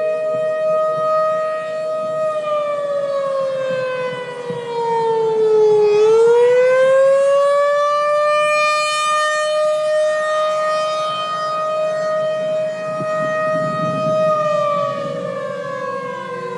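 Tornado warning siren wailing loudly: a steady high tone that slides down in pitch, swells back up and holds for several seconds, then begins to fall again near the end.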